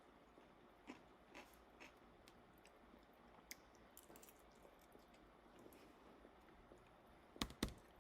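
Faint eating sounds close to the microphone: soft chewing and small mouth clicks, with two sharp clicks close together near the end.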